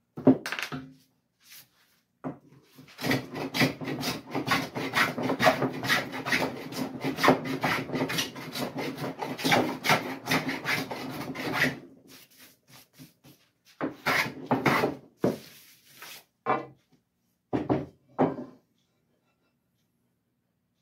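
Hand plane shaving a cherry board to flatten its high spots. A dense run of scraping strokes lasts from about three seconds in to about twelve, then come a few separate short strokes.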